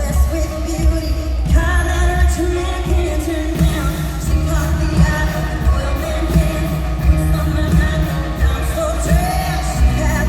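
Live pop-country band playing with heavy, pulsing bass and a woman singing lead.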